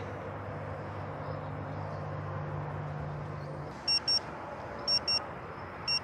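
Potensic drone remote controller sounding its low-battery warning: about four seconds in, pairs of short high beeps start, about one pair a second, three pairs in all. The warning means the drone's battery is low and it is time to land.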